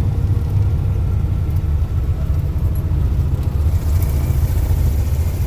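Small plane's engine and propeller running with a steady low rumble, a high hiss building about four seconds in.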